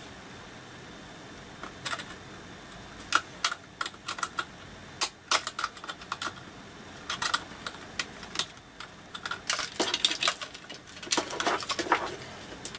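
Irregular small clicks and taps of hard plastic parts and needle-nose pliers being handled while a Discovery 2200 metal detector's plastic housing is put back together, coming in short clusters with brief pauses between.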